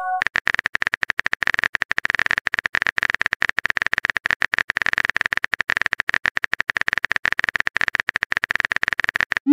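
Phone keyboard typing sound effect: rapid, irregular key clicks with no pause.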